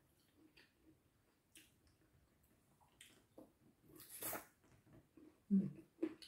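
Close-up wet mouth sounds of eating: small smacks and clicks, a sucking slurp as fingers are licked about four seconds in, then a bite into a green plum and chewing, with the loudest, lower mouth sound about five and a half seconds in.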